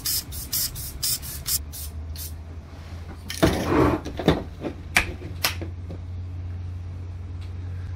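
Short puffs from an aerosol spray-paint can, a few a second, tapering off over the first two seconds. A rustle and a few sharp clicks follow as materials are handled, over a steady low room hum.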